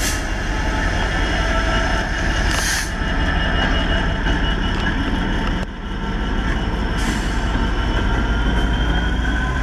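Class 66 diesel-electric locomotive passing slowly, its two-stroke V12 diesel engine running under a thin, high squeal of wheels on the rails that slowly rises in pitch, with a few brief hisses.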